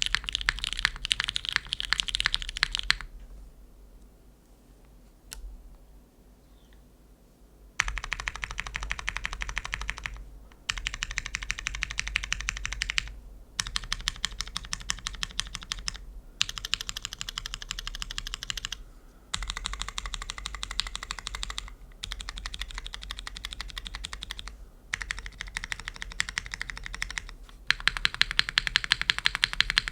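Typing on a gasket-mount Neo65 Cu mechanical keyboard with lubed Cherry MX2A Brown tactile switches on a carbon fiber plate and GMK keycaps: fast runs of keystrokes lasting a few seconds each, broken by short pauses. A longer lull of a few seconds comes early on, and the last run near the end is louder.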